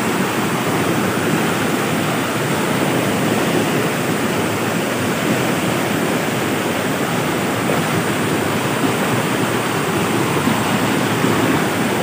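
Shallow rocky stream water rushing and splashing over stones in small cascades, a steady rush of water.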